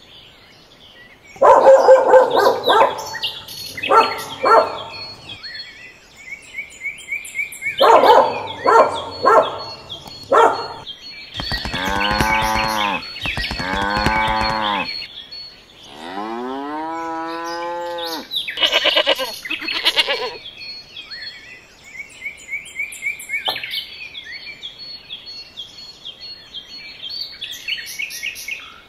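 Cattle mooing, a string of long calls, the one past the middle sliding upward in pitch, with birds chirping steadily between the calls.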